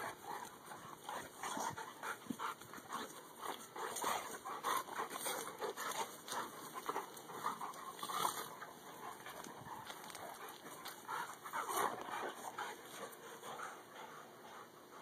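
Two dogs play-fighting: panting and short, irregular vocal sounds as they wrestle and mouth at each other.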